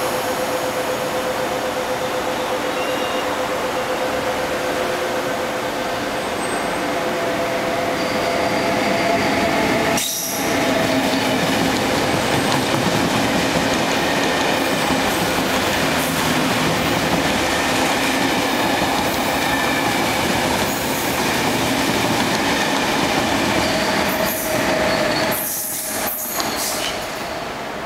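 KCR Ktt through train of double-deck coaches passing at speed on the platform track: a continuous loud rumble of wheels on rail, with its red-headed electric locomotive going by near the end.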